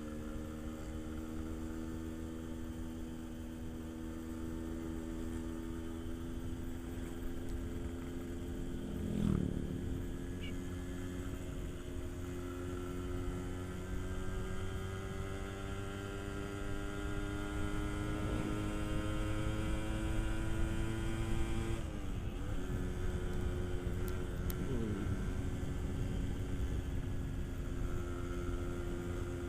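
Yamaha RX-King 135cc two-stroke single-cylinder engine running while being ridden, its pitch climbing slowly for about twenty seconds, dipping briefly and then holding steady, over a constant low rumble.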